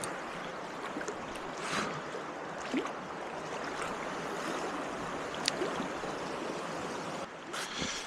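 Mountain trout stream running fast over rocks: a steady rushing hiss of water, with a few faint clicks.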